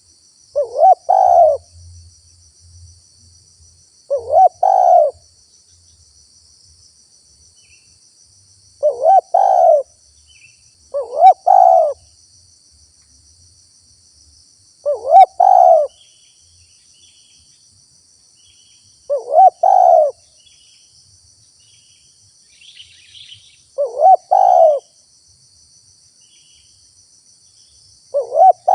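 Spotted dove cooing: eight short phrases of a few notes each, a few seconds apart, over a faint steady high buzz.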